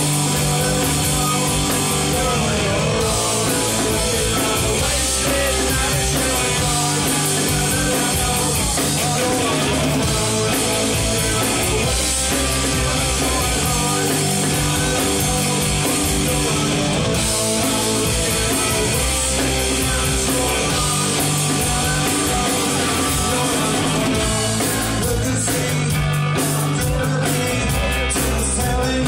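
Live rock band playing loud: electric guitars, bass and drums with a singer, recorded through a phone's microphone.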